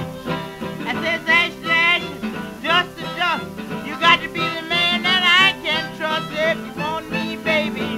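Old-time blues record playing as background music: plucked guitar with a wavering lead melody line over it.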